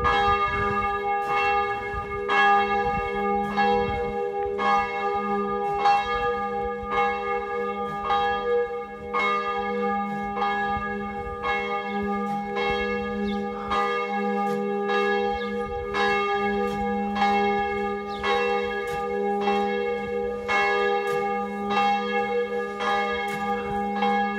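A church bell ringing, struck over and over at a steady even pace, its tone humming on between strikes.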